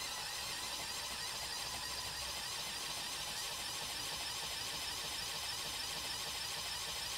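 Lego Technic eight-piston, twin-crank pneumatic compressor driven by a Powered Up motor, running steadily. It switches on automatically whenever a remote control is moved off its zero position.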